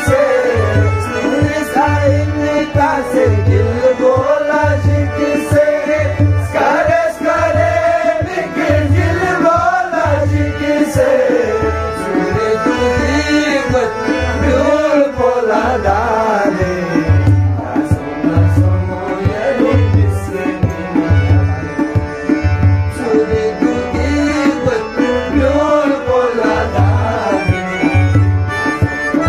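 Live Balti ghazal: a man sings a wavering, ornamented melody over harmonium chords, with a steady low hand-drum beat of about one and a half strokes a second.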